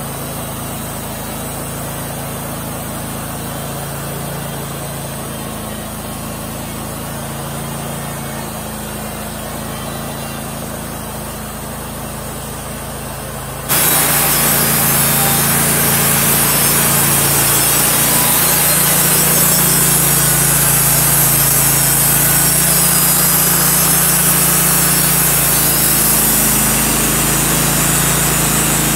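Engine-driven portable bandsaw sawmill running steadily as it saws a walnut log into slabs. About halfway through the sound jumps louder and a bright hiss of the blade cutting comes over the engine's drone.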